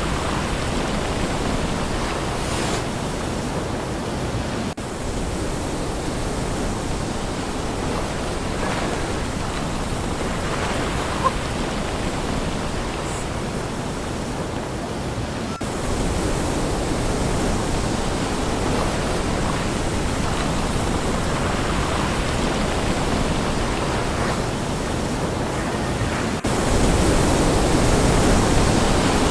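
Sea surf washing on the shore, a steady rushing noise that changes abruptly a few times and is louder near the end.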